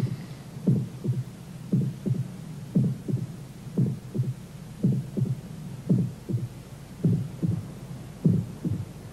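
Heartbeat sound effect: a slow lub-dub double thump about once a second, over a low steady hum.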